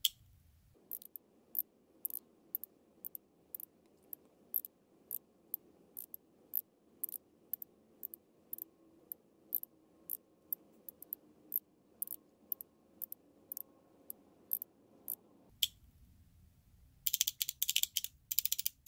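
Electromechanical flip-segment seven-segment display clicking as its coils are pulsed and the segments flip over, one sharp click about twice a second as the digits count up. Near the end a quick rattling run of clicks as many segments flip one after another.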